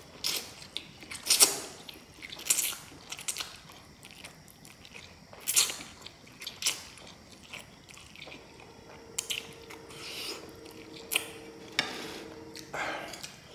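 A person slurping up forkfuls of spicy instant noodles and chewing them, with a string of short, loud slurps; the loudest come about a second in and again around five and a half seconds. A faint steady hum starts about eight seconds in and stops shortly before the end.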